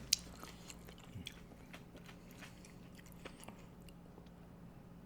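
Quiet close-up crunching and chewing of tortilla nacho chips, with scattered sharp crackles, the sharpest one at the very start.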